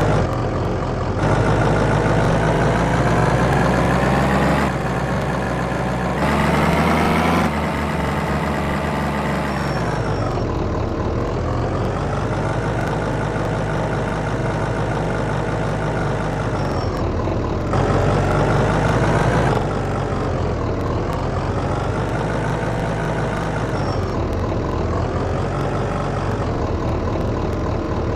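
Heavy diesel engine running loudly, its pitch dipping and rising again several times, with a few abrupt jumps in sound.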